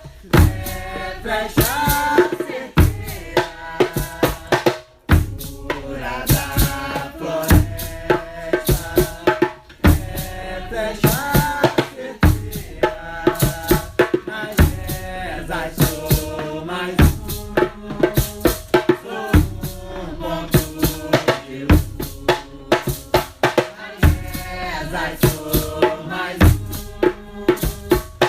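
Nyabinghi drums beating a steady rhythm under chanted singing.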